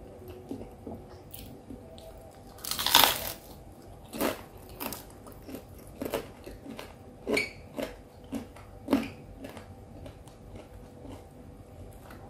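Close-up mouth sounds of eating a pisang goreng (fried banana fritter): a loud crunchy bite about three seconds in, then irregular chewing crunches and smacks.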